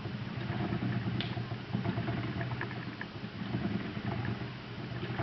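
Lendrum spinning wheel running under treadling: a steady low drone with a handful of sharp, irregular clicks. This is an odd noise the wheel developed after its first month, which oiling the moving parts, tightening the fasteners and trying different flyers have not cured. The clicking is more prominent with active singles threaded through the orifice.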